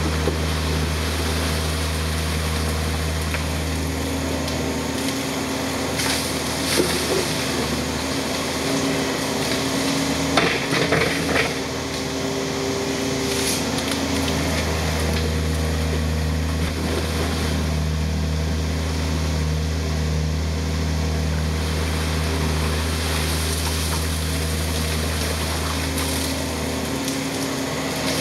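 Yanmar ViO55 mini excavator's diesel engine running steadily as it digs. Its note changes for several seconds midway as the arm works. A few clunks and scrapes come from the bucket and rocks near the middle.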